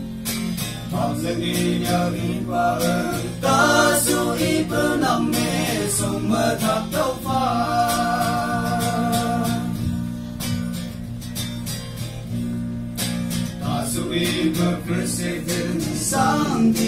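A group of male voices singing a song together, reading the words from sheets, over a steady instrumental accompaniment.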